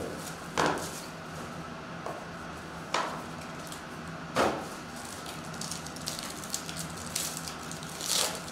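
Plastic-wrapped Panini Court Kings trading-card packs and their box being handled, with sharp crinkles of the wrappers about half a second, three seconds and four and a half seconds in. Smaller crackles follow as a pack wrapper is torn open, ending in a louder rip near the end.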